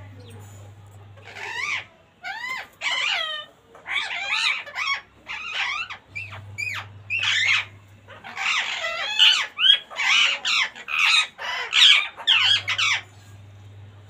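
Rose-ringed parakeets calling: a long run of short, harsh squawks with bending pitch, coming faster and denser in the second half and stopping about a second before the end.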